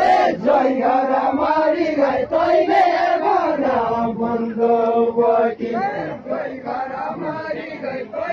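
A group of men singing a traditional village folk chant together in unison, with long held notes.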